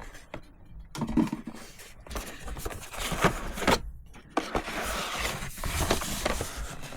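Packaging being opened and handled: irregular scrapes and clicks, then steadier rustling and sliding from about halfway through.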